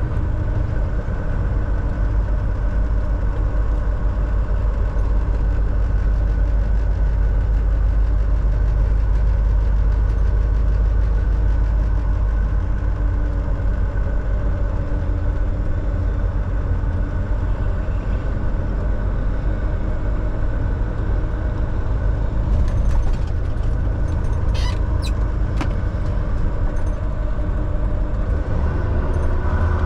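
Volvo semi truck's diesel engine running steadily with road noise while driving, as heard from inside the cab. A few sharp clicks about three-quarters of the way through.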